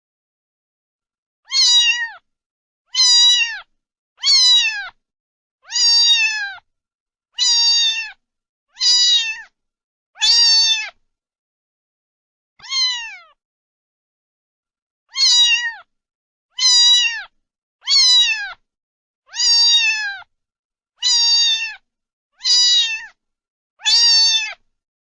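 A cat meowing over and over, about fifteen short high meows, each dropping in pitch at its end, coming roughly every second and a half with a brief pause about halfway through.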